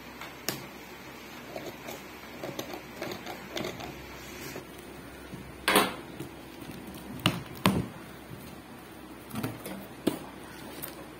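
Opening a taped cardboard carton: scattered taps and scrapes of hands on the cardboard, with a few louder sharp rasps as the packing-tape seam is slit open, the loudest about halfway through.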